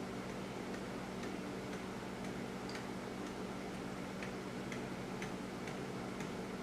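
A clock ticking faintly and evenly, about two ticks a second, over a steady low room hum.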